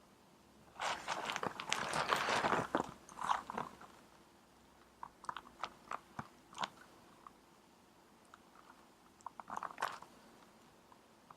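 Clip-on microphone rubbing against fabric: irregular bursts of crackling, scratchy rustle with scattered sharp clicks between them.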